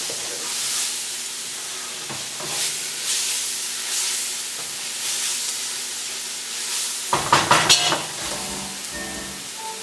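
Onions and spices frying in oil in a pot, sizzling steadily while being stirred, with a quick run of scraping strokes against the pot about seven seconds in. The mixture is being cooked down to form a crust on the bottom.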